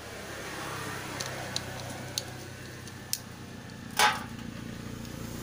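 Light plastic clicks from handling a motorcycle fuel pump module, with a louder knock about four seconds in, over a steady low hum.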